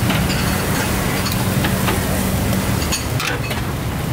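Beef skewers sizzling on a grill, with a few light clinks. A steady motor hum runs under it and stops about three seconds in.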